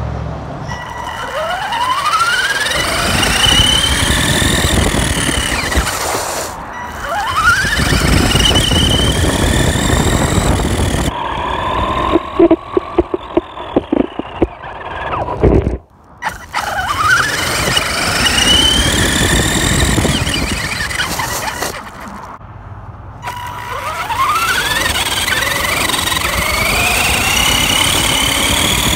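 Electric RC car's motor and drivetrain whining up in pitch as it accelerates, four runs in all, over the rough rumble of its tyres on pavement. About halfway through, a quick run of sharp knocks and clatter.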